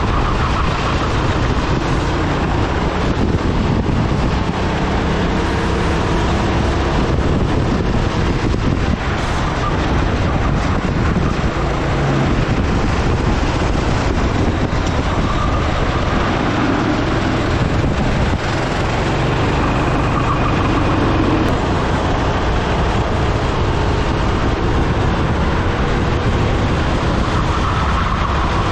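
Rental go-kart engine at racing speed, heard from onboard, its note rising and falling through the corners, over a dense steady rush.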